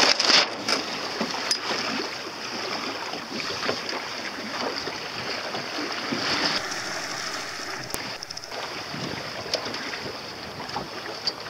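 Water rushing and splashing along the hull of a small sailing dinghy under way, with wind buffeting the microphone; a steady hiss with scattered small knocks.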